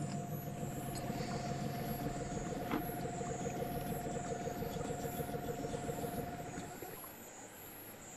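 A motor running steadily with an even hum and a rapid flutter, easing off about seven seconds in. A faint high chirping repeats at an even pace in the background.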